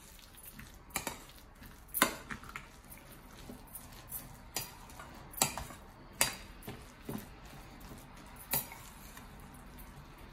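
Metal spoon stirring a wet rice, egg and vegetable mixture in a bowl, with several irregular clinks as the spoon knocks against the bowl.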